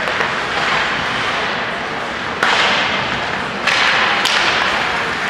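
Ice hockey play in an echoing rink: a steady scrape and hiss of skates on the ice, with three sharp cracks of sticks and puck, about two and a half seconds in, near four seconds, and again half a second later, each ringing on briefly.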